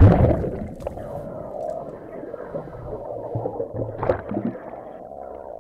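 Plunge into the sea heard on an underwater microphone: a loud splash at the start, then a muffled, steady rush and gurgle of air bubbles, with a short burst of bubbles about four seconds in.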